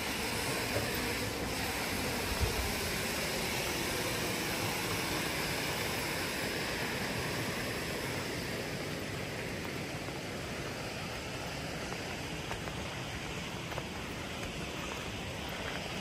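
Wind buffeting the microphone as a steady rushing noise with a heavy low rumble, softening a little about halfway through.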